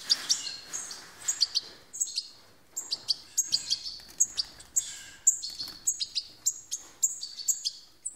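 European goldfinch chicks giving rapid, high chirps, several a second, the begging calls of nestlings being hand-fed from a syringe.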